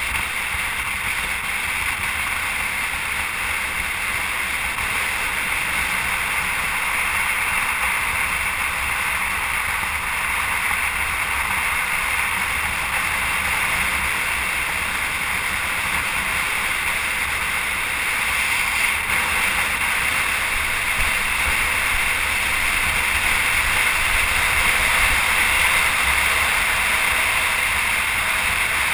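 Steady rushing wind and road noise from travel at speed, growing slightly louder in the second half.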